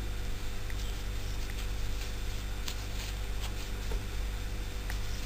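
Steady low electrical hum and hiss, with a few faint ticks and rustles from a metal crochet hook working cotton yarn into single crochet stitches.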